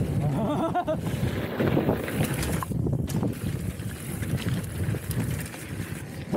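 Wind rushing over the action camera's microphone with a low, steady rumble from a mountain bike rolling over rough ground.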